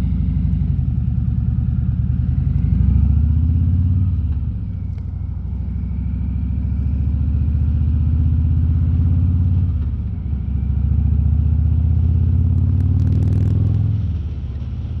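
Harley-Davidson Road King's V-twin engine running under way, picked up by a microphone inside the rider's helmet. The engine note swells and eases several times as the throttle opens and closes, with a brief crackle about two seconds before the end.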